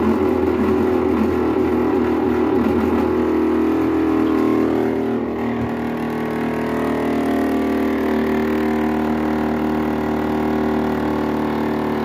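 Brastemp BWH15 15 kg washing machine filling with water and making a very loud, steady, tonal buzzing hum instead of the usual quiet rush of water. Its pitch pattern shifts slightly about five seconds in. It is a fault noise that comes only when the water starts to enter and that comes and goes with the tap's water pressure.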